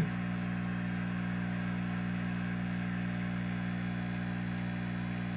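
Steady electrical hum with a light hiss, unchanging throughout.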